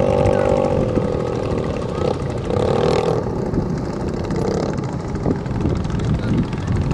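Small racing boat engines running at high revs as the boats pass at speed: one engine's steady note dips slightly in pitch about a second in, and another engine is heard briefly around three seconds in. A dense low rumble of wind noise lies underneath.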